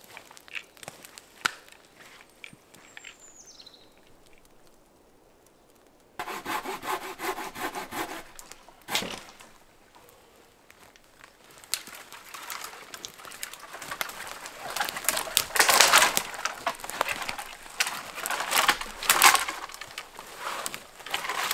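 Light steps and twig clicks on the forest floor at first. Then, from about six seconds in, a hand saw cuts through dry standing spruce deadwood for firewood in quick back-and-forth strokes, loudest near the end.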